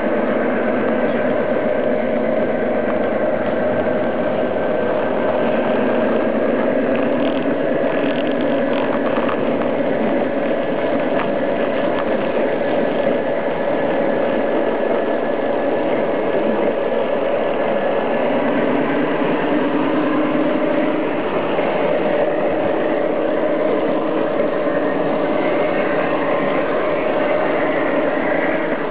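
A large-scale garden railway train running steadily along its track, heard from on board: a continuous hum of motor, gears and wheels on the rails.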